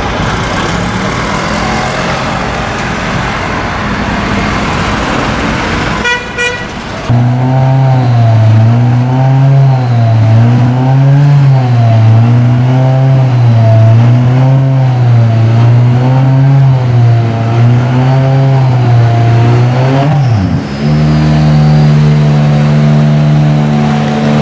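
Race car engine idling with a lumpy, hunting idle, its pitch rising and falling about once a second. Just after 20 seconds it settles to a steadier, slightly higher pitch. Before it starts, about six seconds of general pit-lane noise end in a short burst of rapid ticking.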